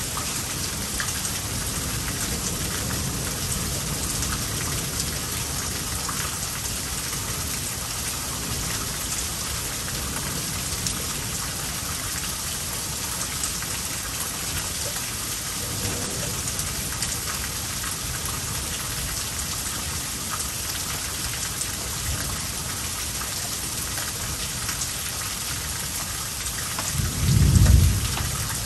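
Heavy rain falling steadily in a thunderstorm, with a brief, loud, low rumble of thunder near the end.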